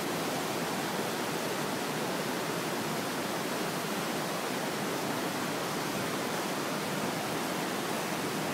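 Steady rushing of a fast-flowing mountain river, an even hiss that does not change.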